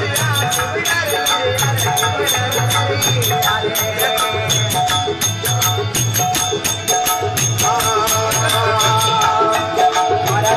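Live Rajasthani folk bhajan: singing over a steady, repeating drumbeat and fast, even clicking of hand percussion.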